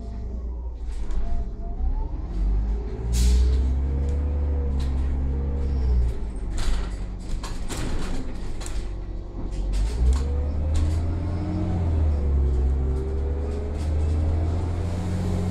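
Irisbus Citelis city bus with a compressed natural gas engine heard from inside the passenger cabin as it pulls away and accelerates: a low rumble with an engine note that climbs, dips about six seconds in and climbs again from about ten seconds in. Sharp clicks and rattles come through throughout.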